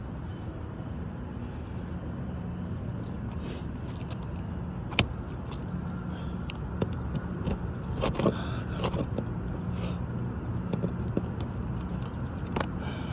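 Scattered sharp clicks and short scrapes of a hand tool prying roofing nails out of asphalt shingles, the loudest clicks about five and eight seconds in, over a steady low hum.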